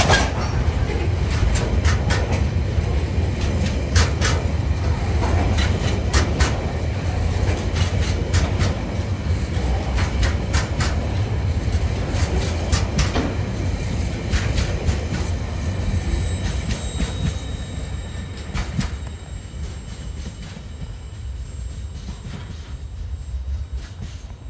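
Freight train's container flat wagons rolling past, a steady rumble with irregular clicks and knocks of the wheels over the rail joints. A faint high squeal comes in over the second half, and the sound fades as the last wagons draw away near the end.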